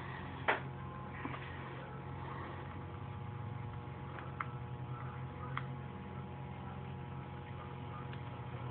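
Steady low hum with a few sharp clicks, the loudest about half a second in.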